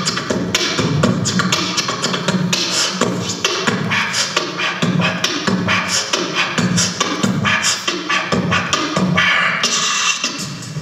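A man beatboxing into a handheld microphone, amplified through a PA: a fast, steady run of mouth-made kick, snare and hi-hat sounds.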